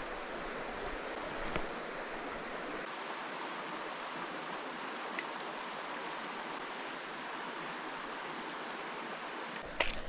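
Trout river water rushing steadily. Near the end come a few short knocks and splashes.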